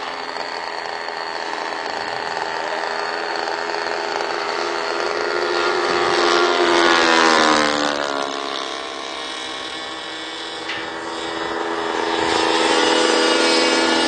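RC model airplane engine running in flight, making a pass: it grows louder to a peak about seven seconds in, its pitch dropping sharply as the plane goes by, then fades and swells again near the end as the plane comes back around.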